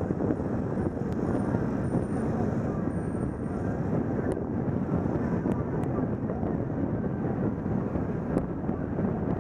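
Steady rush of wind on the microphone of a camera riding along in a bicycle lane, mixed with the noise of slow car traffic alongside.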